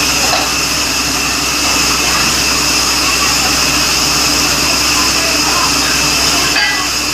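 Borewell drilling rig running steadily: a loud, even machine noise with high whining tones over a low hum, easing briefly near the end.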